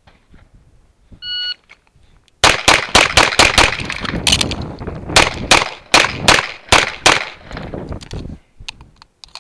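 A shot timer beeps once, and about a second later a CZ Shadow 2 9mm pistol fires a fast string of shots, with a brief pause midway for a magazine change before the shooting resumes.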